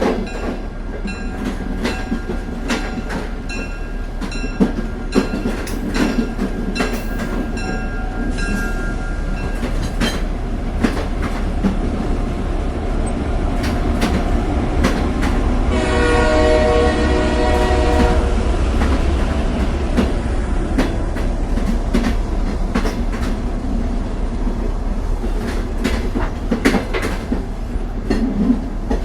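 Moving train running with a steady rumble and irregular clicks of the wheels over rail joints. A horn sounds for about two seconds a little past the middle.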